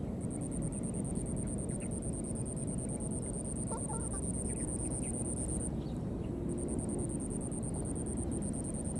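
An insect's high, fast-pulsing trill, which stops for about a second past the middle and then starts again, over a steady low outdoor rumble. A few faint short squeaky calls come through about halfway in.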